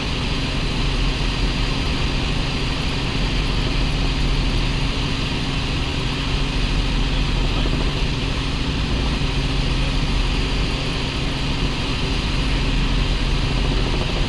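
A light helicopter's engine and main rotor heard from inside the cabin in level cruise flight: a steady, loud drone with a low hum under a wide hiss that does not change.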